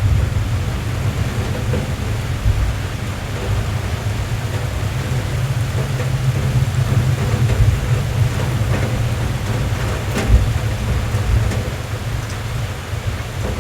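Steady rain drumming on a car's roof and glass, heard from inside the cabin, with occasional single drop ticks. A low rumble of thunder runs underneath and dies down over the first few seconds.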